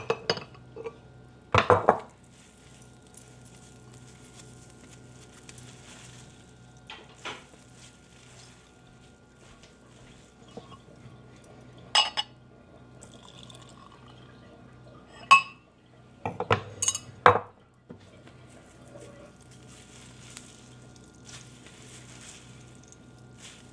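Kitchenware clattering: a pot, bowl and drinking glass knocking and clinking on a wooden counter in a handful of sharp strikes, loudest about two seconds in and again around seventeen seconds, with liquid poured from the pot into the glass.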